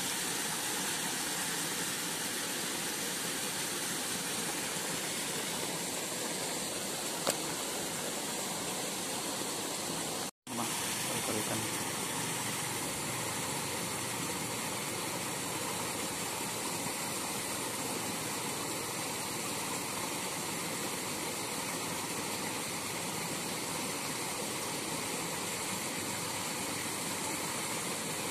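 A steady, even hiss, with one short click about seven seconds in and a momentary gap in the sound about ten seconds in.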